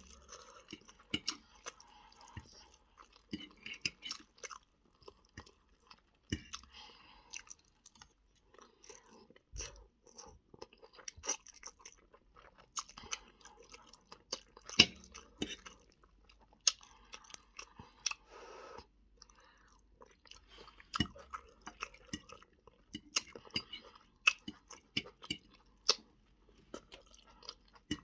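Close-up chewing of a spaghetti meal: a person's mouth working on food with irregular wet smacks and clicks.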